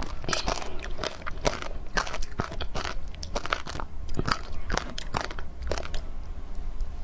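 Close-miked biting and chewing of powdery frozen matcha ice: a steady run of crisp crunches and crackles.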